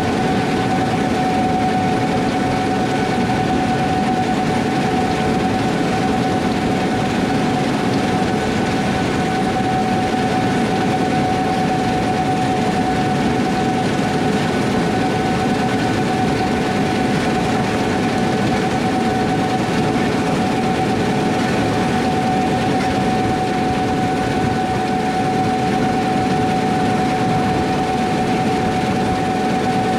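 Gleaner S78 combine running steadily while cutting wheat: constant engine and threshing noise with a steady whine on top.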